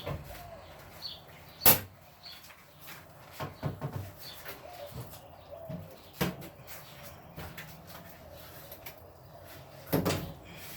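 Irregular knocks and clatters of hand work on a bus's interior wall panel as it is pried loose, with a sharp bang nearly two seconds in and another loud knock near the end.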